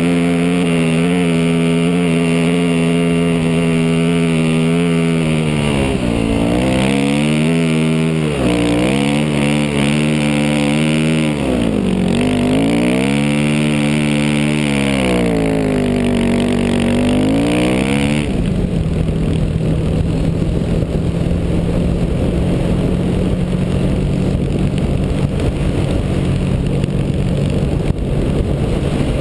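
Yamaha WR400F's single-cylinder four-stroke engine pulling hard up a sand dune, its revs dipping and climbing again several times. About two-thirds through, the engine note falls to a low idle under a rush of wind noise on the helmet camera.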